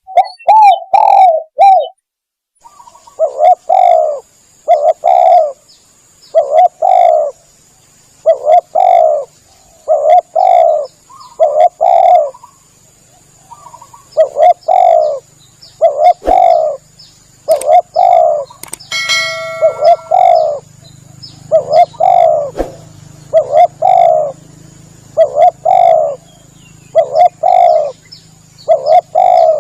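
Spotted dove (tekukur) cooing over and over in short phrases with brief gaps, played as a lure call to draw wild doves in.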